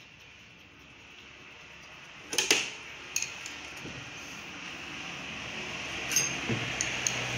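Metal engine parts and tools clinking on a workbench, a few sharp clinks a little over two seconds in and again near the end, over a steady hiss that slowly grows louder.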